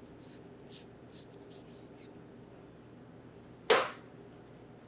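Faint short strokes of a knife trimming a tied beef chuck roast during the first two seconds, over a low steady hum, then a single sharp knock a little after three and a half seconds in.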